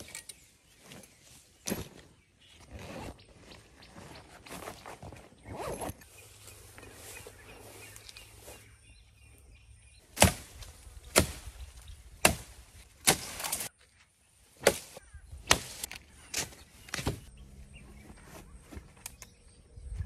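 Rustling and light clinks of a coil of wire being handled in grass, then from about halfway a run of sharp strikes about once a second, a machete chopping into branches.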